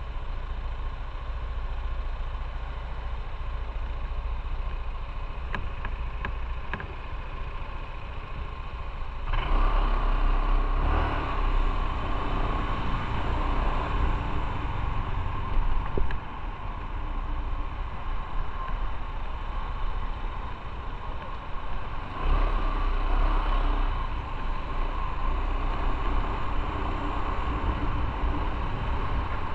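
Motorcycle running on the road while being ridden, a steady engine and road noise. It grows louder about a third of the way in, eases back about halfway, and picks up again in the last quarter.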